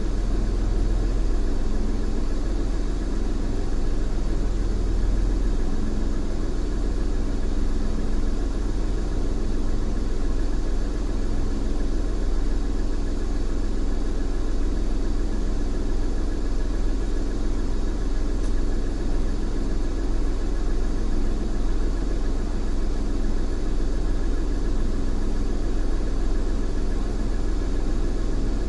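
Car engine idling steadily while the car stands still, a constant low hum heard from inside the cabin.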